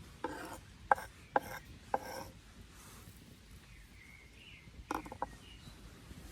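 A few short scrapes and knocks, like wood or metal being handled. There is a cluster in the first two seconds and a quick double knock about five seconds in.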